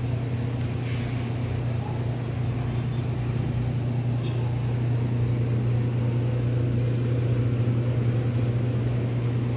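A steady low machine hum that runs on without change.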